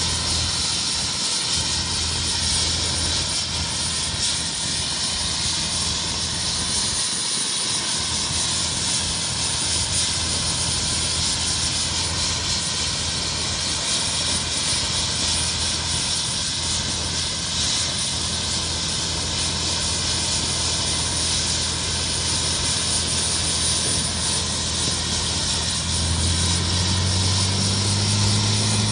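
Helicopter running steadily, a constant dense whine and whoosh with steady tones. About 26 seconds in, a louder low hum comes in and slowly rises in pitch.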